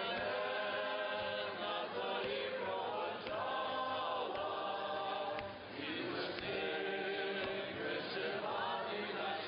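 A group of voices singing together, holding long notes with short breaks between phrases.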